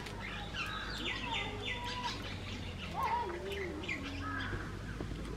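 Several birds calling, with short chirps and whistled, sliding notes throughout. A few light clicks come from Malabar spinach stems being cut by hand.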